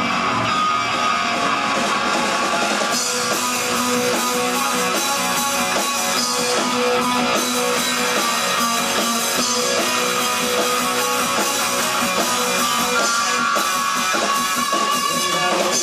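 Rock band playing an instrumental passage live: guitars with drum kit, the cymbals and drums busier from about three seconds in.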